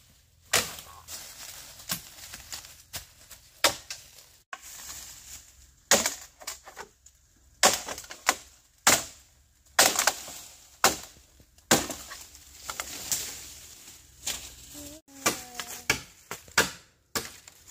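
A blade chopping: sharp strikes, unevenly spaced at about one a second.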